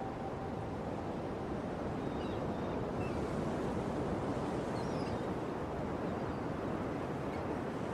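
Sea surf washing steadily, with wind, and a few faint high chirps around the middle.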